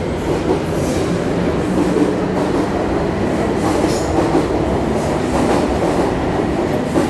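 Taipei Metro C301 electric train running on its steel rails along the platform: a loud, steady rumble with a low hum underneath.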